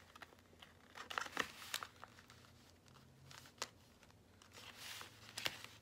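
Glossy printed paper crinkling and rustling quietly in short, scattered crackles as a wrapper is folded and pressed around a candy bar, with a few more crackles near the end.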